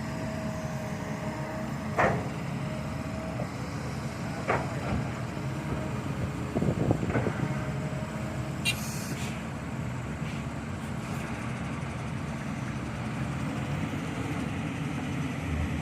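Heavy truck engine running steadily, with a few short knocks and a brief hiss about nine seconds in.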